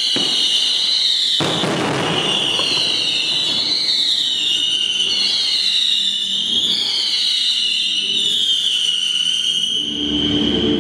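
Aerial fireworks going off: continuous crackling under a shrill whistling that wavers and repeatedly falls in pitch, with a heavier burst of bangs about a second and a half in.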